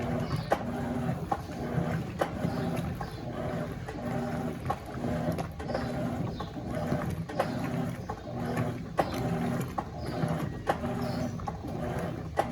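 Electrolux LF90 top-loading washing machine agitating: the motor hums in short pulses a little more than once a second, with a sharp click at each stroke as the agitator reverses.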